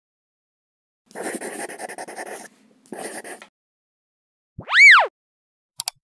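Animated logo intro sound effects: a rough, crackling noise lasting about a second and a half, a shorter burst of the same, then a single loud tone that sweeps up and back down, and two quick clicks near the end.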